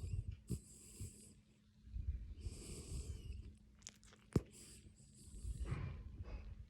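Snoring in sleep: slow, noisy breaths about every three seconds, each with a low rattle and a hissy rush of air. A single sharp click comes a little past halfway and is the loudest sound.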